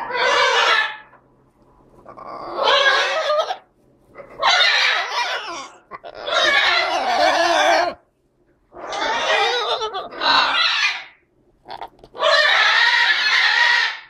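Green-winged macaws giving a run of harsh, raspy calls from their nest box, about eight in all, each lasting one to two seconds with short gaps between.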